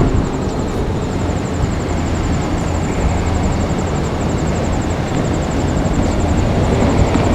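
JR Kyushu 787 series electric train passing at speed, a steady loud rumble of wheels and running gear on the rails.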